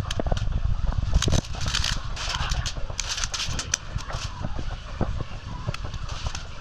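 Irregular sharp clicks and knocks, with patches of hiss in the first half, over a constant low rumble: the sound of a player moving through an airsoft game.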